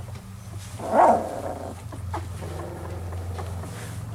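Very young standard Poodle puppies squealing and whimpering: one loud short squeal about a second in, then fainter whimpers, over a steady low hum.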